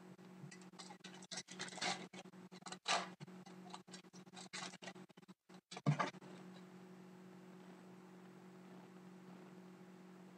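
Trading card packs and cards being handled: a run of faint scratchy rustles and light clicks for about six seconds, then only a steady low hum.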